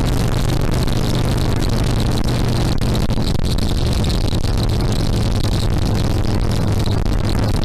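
Harley-Davidson Sportster XL1200R's 1200 cc V-twin engine running steadily, its low exhaust note heard from behind the seat together with a rushing noise; the engine note dips slightly about three seconds in.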